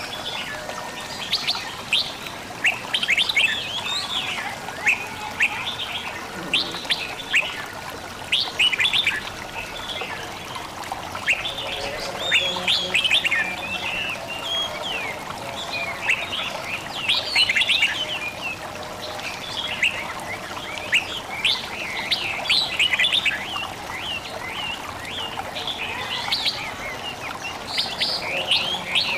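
Many songbirds chirping and twittering in quick, overlapping high-pitched calls, over a faint trickle of running water.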